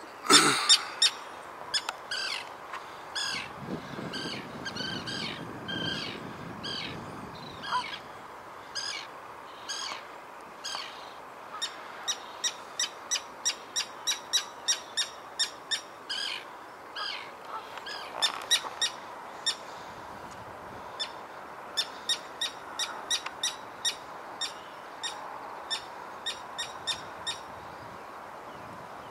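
Common terns giving harsh alarm calls as they dive-bomb an intruder to drive him off. The calls are short and sharp, repeated throughout, with an evenly spaced run of about two a second midway.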